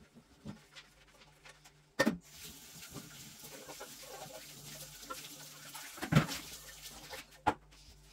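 Kitchen cleaning noises: a sharp knock about two seconds in, then a steady hiss for about five seconds, with two more knocks near the end.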